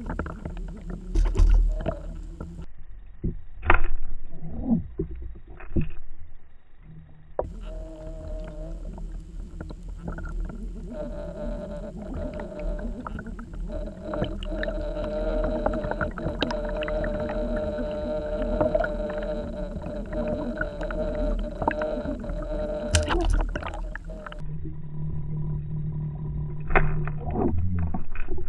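Underwater sound picked up by a submerged camera: a constant low rumble of moving water with several sharp knocks. From about 8 to 24 seconds in, a steady mechanical humming drone runs beneath it.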